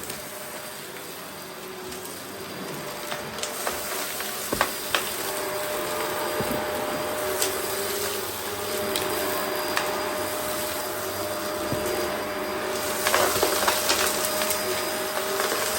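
Vacmaster Respira vacuum cleaner running steadily as it picks up debris, with scattered sharp clicks of debris rattling through. A few seconds in it gets louder and a steady whine sets in, the change in motor sound that signals the vacuum is losing suction.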